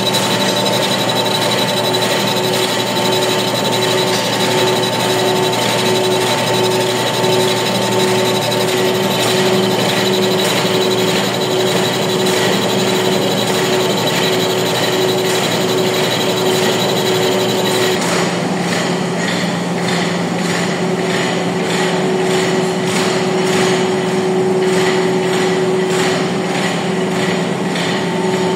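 Large engine lathe running with a heavy flanged workpiece turning in the chuck: a steady machine hum with a high whine from its drive, and a regular knocking through it. About two-thirds of the way through, the sound changes and the knocking comes through more plainly.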